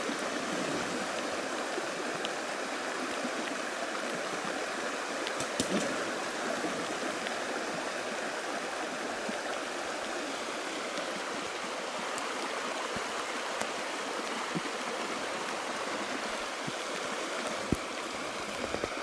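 Shallow stream running steadily over a gravel bed, with a few faint sharp clicks, the clearest near the end.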